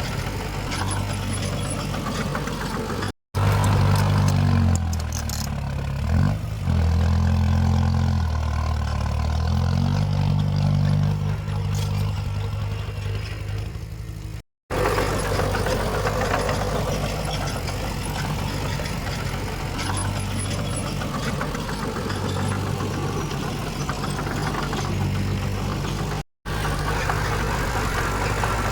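Diesel engines of heavy earthmoving machinery running, the engine note rising and falling as the machines work. The sound drops to silence three times at cuts between shots, and it is loudest in the stretch after the first cut.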